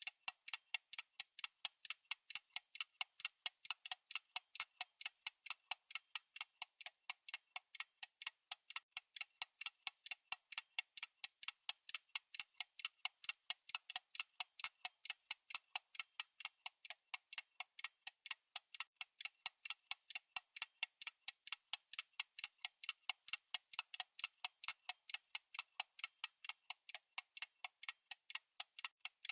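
Clock ticking sound effect: a steady run of sharp, evenly spaced ticks, several a second, thin and high with no low end.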